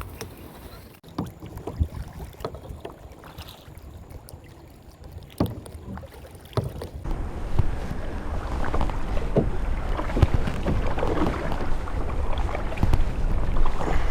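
Kayak moving on the water: scattered knocks and splashes of paddle and hull. Wind rumble on the microphone grows louder about halfway through.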